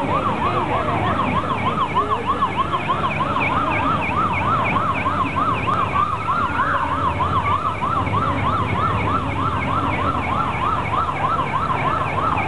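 Police motorcycle siren sounding a fast yelp, its pitch sweeping up and down about four times a second without a break, over a low murmur of crowd noise.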